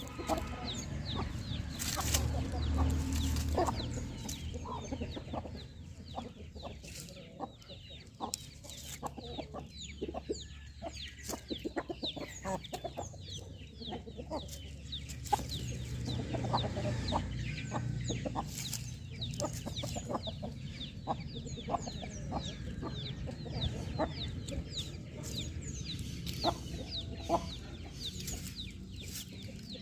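Aseel chickens of the Parrot Nose Long Tail type clucking, with many short, high chirping calls throughout.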